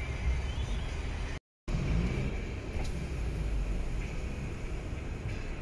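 Car engine running at low speed with a steady low rumble, heard from inside the cabin; the sound drops out completely for a moment about a second and a half in.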